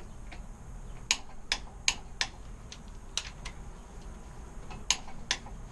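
Click-type torque wrench set to 46 ft-lb clicking while it tightens connecting-rod cap bolts: about eight sharp metallic clicks, mostly in pairs a few tenths of a second apart.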